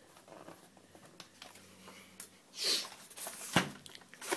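Faint clicks of a small precision screwdriver turning the screws in a plastic 00-scale Mk1 model coach chassis. A short, hissy breath comes about two and a half seconds in, with a sharp click just after.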